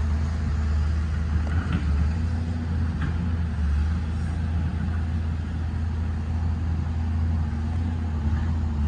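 John Deere 690D excavator's diesel engine running at a steady low hum.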